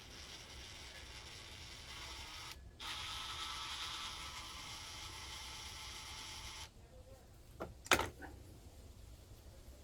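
A steady faint hiss that cuts off abruptly twice, then a few sharp clicks of small carburetor parts and a tool being handled, the loudest about eight seconds in.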